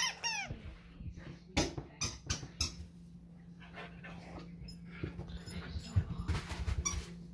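Labrador puppy at play: a couple of high, pitch-bending squeaks right at the start, then scattered soft knocks and scuffles, busiest near the end.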